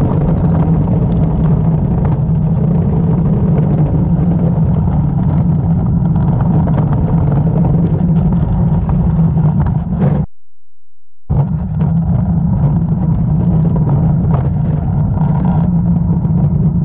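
Luge cart wheels rolling fast over a concrete track: a loud, steady low rumble with a constant hum. It cuts out for about a second roughly ten seconds in, then carries on.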